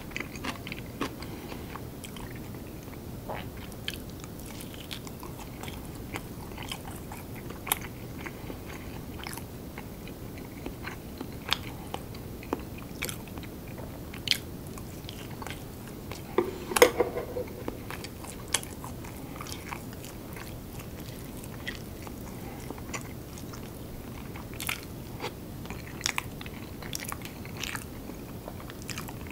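Close-miked eating sounds of a man chewing and biting through a meal of curry rice and kimchi: wet chewing with scattered small clicks and crunches. One louder sharp click stands out about seventeen seconds in.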